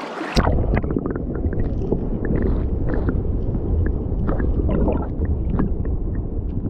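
Muffled, rumbling rush of river current heard with the microphone under water, with scattered small clicks and ticks; it sets in suddenly about a third of a second in as the camera goes below the surface.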